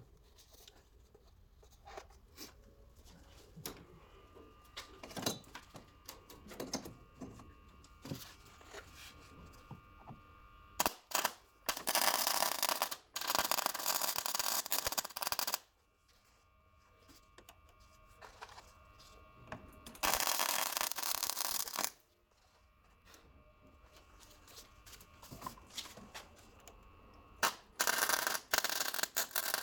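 MIG welder laying short weld runs on the thin steel bodywork of a Citroën 2CV. Three bursts of loud sizzling, each a few seconds long, the first about a third of the way in. Light clicks and taps of handling come between them.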